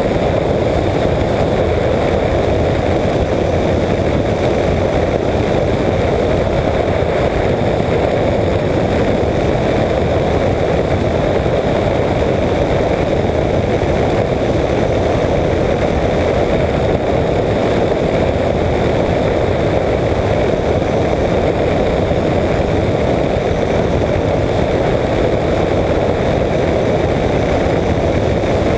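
A microlight trike's engine and pusher propeller running steadily in cruise, mixed with the rush of airflow in flight.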